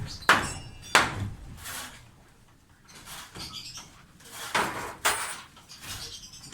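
Hammer blows on a construction job, two sharp strikes in the first second ending a steady run of hammering. Quieter knocking and clatter follow, with a louder burst of clatter a little before the end.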